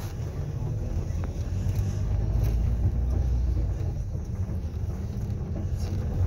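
Steady low rumble of a moving vehicle's engine and tyres.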